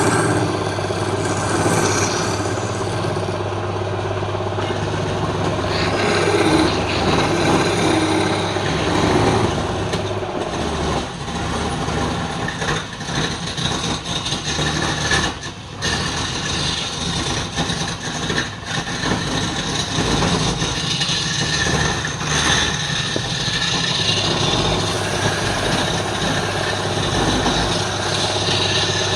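Wood lathe running with a steady motor hum, under the uneven scraping of a tool or abrasive on the spinning wood, easing off briefly about halfway through.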